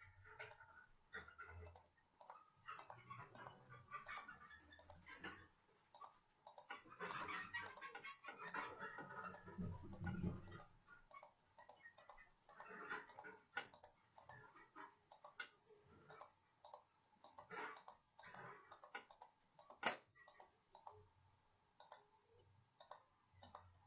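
Faint, uneven clicking of a computer mouse, a few clicks a second, as handwritten strokes are erased on a digital whiteboard.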